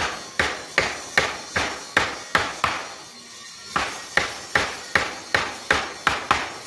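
Small hand hammer striking a steel punch held on aluminium sheet, embossing a decorative pattern: a steady run of sharp metal taps, about two and a half a second, with a pause of about a second midway.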